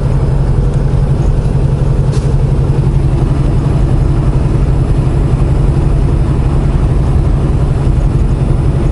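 Semi-truck's diesel engine running at steady highway cruise with tyre and road noise, heard from inside the cab as a constant low drone.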